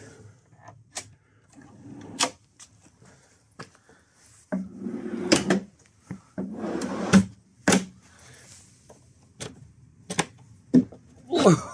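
Plywood drawer sliding in and out on metal drawer runners: two rolling runs of the slides midway, with sharp clicks scattered between them, including the runners' lock catching.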